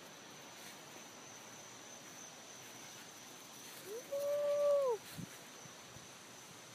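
A cat meowing once, a single call of about a second that rises, holds steady and drops away at the end, a little under four seconds in.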